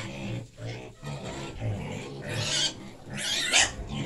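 Domestic piglets grunting in their pen, with two short, louder noisy bursts about two and three seconds in.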